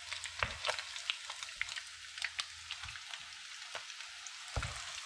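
Small bangamary fish frying in hot oil in a pan: a steady sizzle with many crackling pops. Two dull knocks sound against it, about half a second in and near the end.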